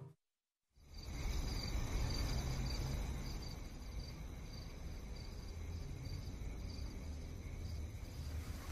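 Crickets chirping in a steady pulsing trill over a steady low rumble, starting after about a second of silence.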